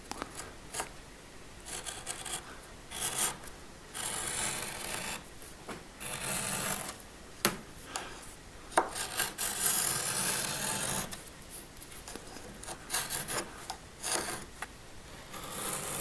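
A kitchen knife with a rounded-off tip is drawn through thick upholstery leather along a straightedge, cutting a straight edge. It makes a series of rasping strokes, each up to a couple of seconds long, with short pauses between them, and one sharp click midway.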